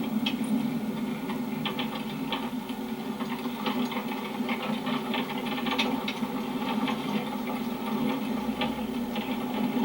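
Steady engine drone of a vehicle, heard as an even low hum with light rattles and clicks scattered through it.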